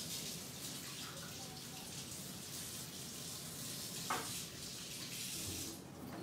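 Water running from a tap in a steady hiss, shut off shortly before the end, with a single light knock about four seconds in.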